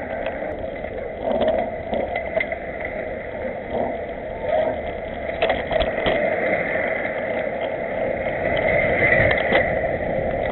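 Riding noise from a bicycle in a pack of cyclists: a steady rush of wind and tyres, with scattered knocks and rattles as the bike runs over paving blocks.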